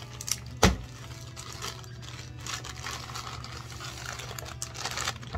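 Clear plastic wrapping crinkling and rustling as a boxed label printer is handled and unwrapped, with one solid thump under a second in.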